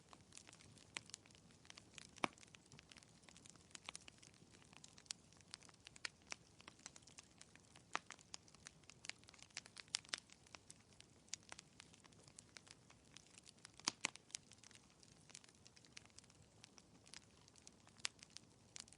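Fireplace crackling quietly: irregular small pops and snaps over a faint low hiss.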